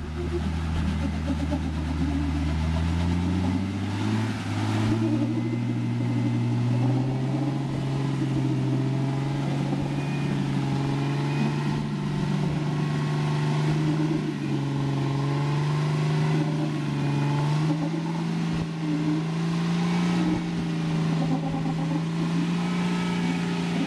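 Rock crawler's engine pulling under load up a steep rock ledge: it revs up about three or four seconds in, then holds at raised revs, swelling and easing a little as the driver works the throttle.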